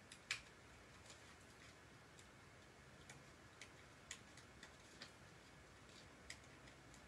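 Faint, scattered small clicks of fingers picking and pushing tiny punched-out bits from a die-cut paper piece, a second or so apart, over near silence; the sharpest click comes just after the start.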